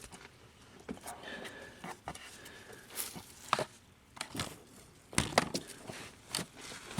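Scattered clicks and knocks of a hand working at the fasteners of a 2015 Ford Fusion's plastic underbody shield, reached from under the car.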